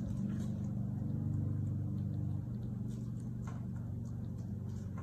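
Steady low machine hum, with part of it dropping out about halfway through. Over it come faint scrapes and ticks of a small sculpting tool working the edge of soft epoxy putty.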